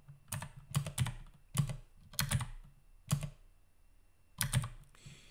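Computer keyboard being typed on: about a dozen short, sharp keystrokes in small irregular clusters, with a pause of about a second before a last pair of keystrokes near the end.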